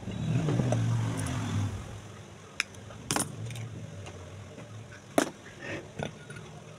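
The metal top cover of an old ceiling fan being worked off its body: a low scraping creak for about two seconds, then several sharp metallic clicks and knocks.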